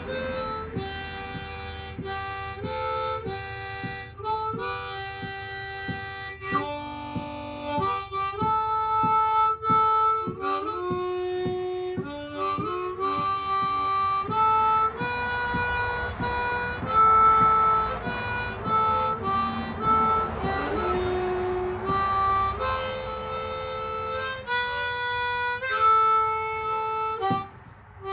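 Harmonica playing a slow tune, its held notes changing every second or so, with a brief break near the end.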